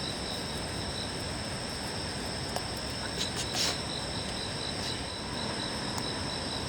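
Crickets or similar night insects chirping steadily in a continuous chorus of several high trilling tones, one of them pulsing evenly. A short cluster of soft clicks about halfway through.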